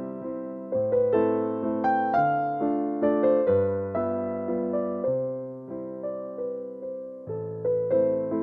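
Solo piano background music: struck notes and chords that ring and fade, over a slowly changing bass line.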